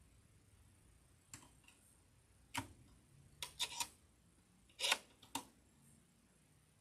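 A handful of sharp plastic-and-metal clicks from a sewing machine's built-in needle threader being worked to rethread the needle, the loudest about five seconds in. The threader fails to catch the thread, which she puts down to a worn threader or needle.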